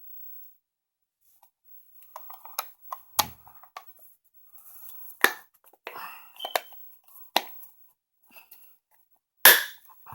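Plastic multimeter case being fitted back together by hand: a scatter of sharp clicks and knocks with some rubbing, starting about two seconds in, the loudest snap near the end.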